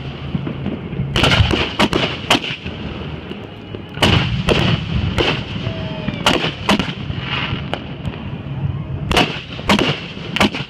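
Fireworks going off: sharp bangs in quick clusters of three or four, about a second in, about four seconds in, around six and a half seconds and again about nine seconds in, each bang echoing briefly.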